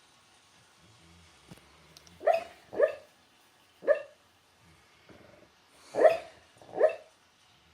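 Sleeping, dreaming dog hiccuping: five short, sharp sounds, two close together about two seconds in, one near the middle and two more near the end.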